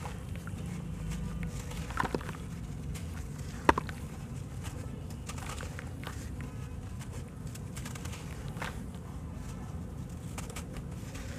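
Sand-and-cement block being crumbled by hand over a basin of water: gritty crunching and crumbs dropping into the water. There are two sharp cracks, about two seconds in and just before four seconds, and the second is the loudest.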